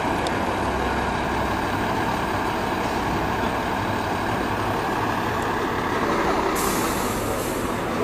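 Scania 420 truck's diesel engine running steadily, with a short hiss of released air about six and a half seconds in that lasts about a second.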